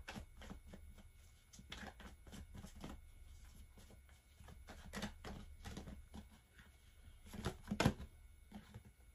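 Tarot cards being shuffled by hand: soft, irregular riffling clicks as the cards slide and slap against each other, with one louder snap near the end.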